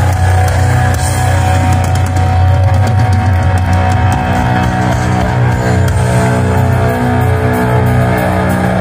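Live heavy metal band playing loud, with distorted electric guitars and bass holding sustained, ringing notes over a heavy low end and some drum and cymbal hits.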